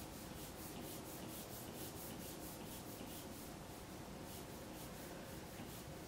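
A stylus rubbing across a tablet screen in quick repeated line strokes, about three to four short strokes a second, with a brief pause a little past the middle.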